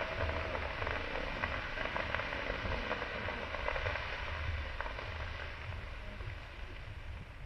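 Fireworks crackling: a dense fizzing crackle of many small pops over a low rumble, thinning out over the last couple of seconds.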